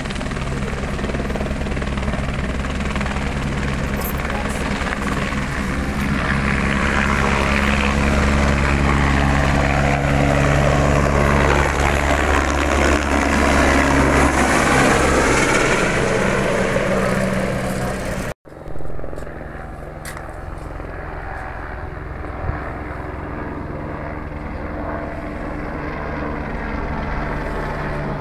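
AS350 Écureuil-type single-turbine helicopter lifting off and flying close overhead: a steady rotor and engine drone that grows louder, with a sweeping, phasing sound as it passes nearest. After a brief cutout about 18 seconds in it is heard fainter as it climbs away.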